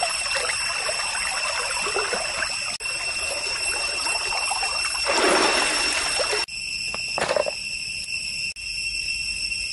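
Stream water splashing and trickling as a whole chicken is washed and cut in it. The splashing is loudest from about five seconds in, stops abruptly at six and a half seconds, and a short splash follows about a second later, over a steady high-pitched ringing drone.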